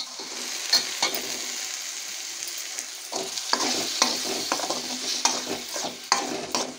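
Tomato puree hitting hot ghee and fried onion masala in a stainless-steel kadai and sizzling. A steel spoon knocks once as the puree goes in, then stirs and scrapes it across the pan in many quick strokes from about three seconds in.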